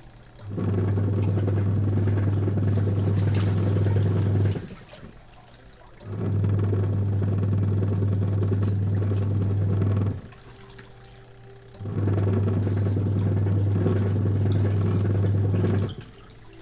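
Factory machine cycling on and off: a loud, steady low hum runs for about four seconds, stops for about a second and a half, then starts again, three times over in an even rhythm.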